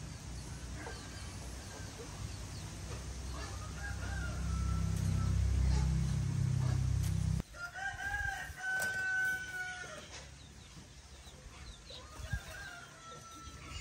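A rooster crowing three times, each crow ending on a long held note, the middle one loudest. Under the first half is a low rumble that stops suddenly about halfway through.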